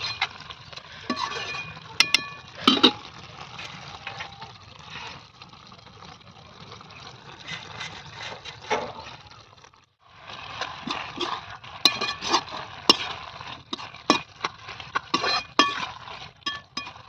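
Metal spoon clinking and scraping against a metal cooking pot as cooked vegetable curry is stirred and served, with many sharp knocks that grow more frequent in the second half.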